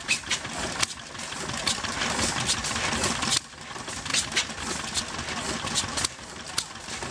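Blackstone stationary oil engine running, its heavy flywheels turning, with repeated sharp clicks over a steady mechanical clatter.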